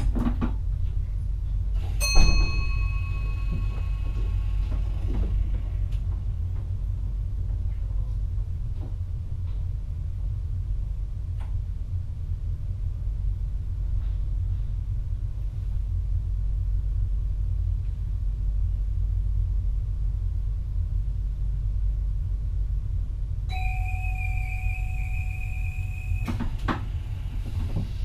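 Steady low rumble of a VIRM electric train running, heard inside the driver's cab. About two seconds in, a single bell-like ding rings out and fades. Near the end, a steady two-pitched warning tone sounds for about three seconds, then stops.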